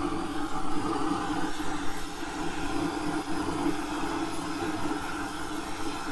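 Propane burner running steadily in a smokehouse fire pot, getting the charcoal and white oak fire started.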